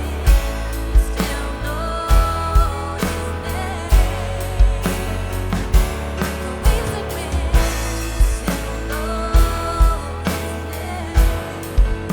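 Live worship band playing: a steady drum beat over a sustained bass and synth bed, with guitar and piano and held melody notes on top.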